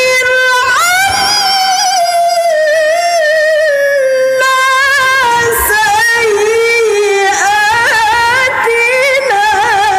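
A woman reciting the Qur'an in the melodic mujawwad style into a handheld microphone, holding long, ornamented notes with a quivering pitch. The melody drifts slowly downward through most of the phrase, then rises again near the end.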